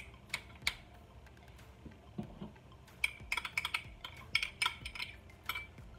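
A glass measuring cup clinking against a stainless steel mixing bowl as shredded cheese is knocked out of it: a few light taps near the start, then a quick run of clinks about halfway through.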